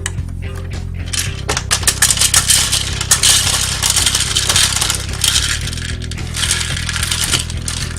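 Hard beans clattering and rattling in a dense stream, as if scooped and poured by plastic toy trucks, loudest in the middle and again near the end, over a steady low drone.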